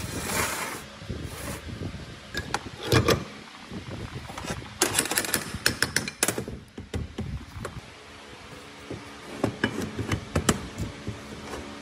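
Metal planer parts, a roller shaft and its cast bearing housings, knocking and clinking against each other and a steel workbench as they are fitted together by hand. Irregular sharp knocks, the loudest about three seconds in and a quick cluster around five to six seconds.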